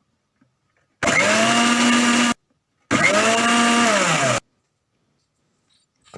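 Electric mixer grinder pulsed twice, each burst about a second and a half long, the motor pitch rising as it spins up and falling as it stops. It is giving thick, freshly emulsified egg mayonnaise a final whirl.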